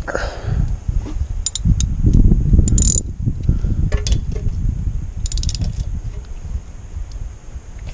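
Tools and metal parts being handled: a scatter of sharp clicks and clinks over a low rumble that is loudest in the first few seconds.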